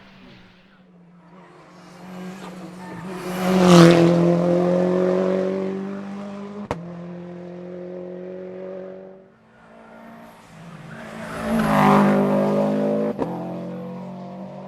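Hillclimb race cars passing at full throttle, one after the other: each engine note swells to its loudest as the car goes by, about four seconds in and again near twelve seconds, then fades. A short sharp crack follows each pass.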